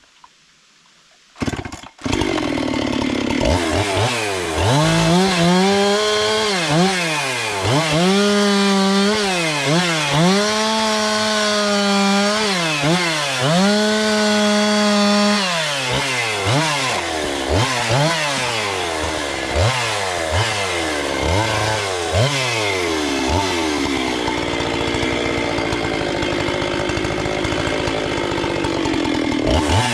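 Gasoline chainsaw starting about two seconds in, then revved up and down repeatedly, held at full throttle for a few seconds at a time while cutting firewood, with quicker throttle blips near the end.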